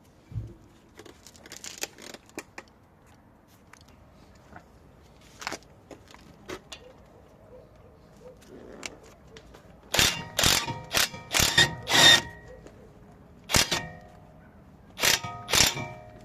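Metal hand tools clinking and clanking against each other and the brake caliper, with ringing after each strike; quiet handling at first, then a burst of sharp clinks about ten seconds in and a few more near the end.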